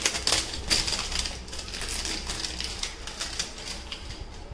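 Smartwatch box and its paper packaging being handled and opened by hand: a quick, irregular run of clicks, taps and rustles, busiest in the first couple of seconds.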